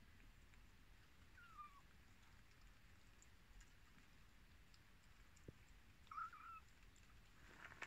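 Two faint, short, high-pitched kitten mews, one about a second and a half in and another about six seconds in, over near silence.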